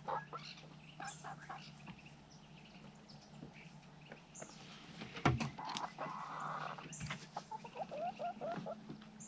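Hens clucking softly in short, scattered calls, with a sharp knock about five seconds in and a steady low hum underneath.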